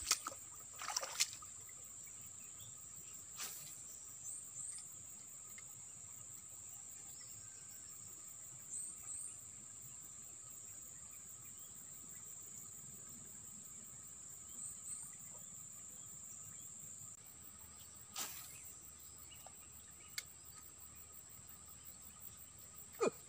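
A steady, high-pitched drone of insects in the grass and bushes, with a few short chirps and a handful of brief clicks.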